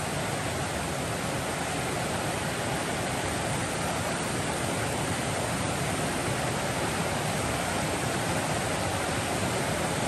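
Steady rush of a fast-flowing mountain river.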